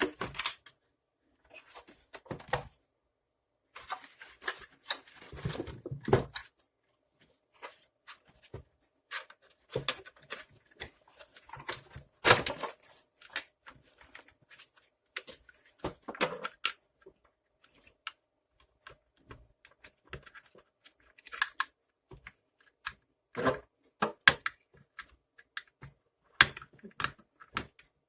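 Irregular clicks, knocks and scraping of plastic vacuum-cleaner parts and tools being handled during disassembly, with a longer stretch of rustling and scraping about four to six seconds in.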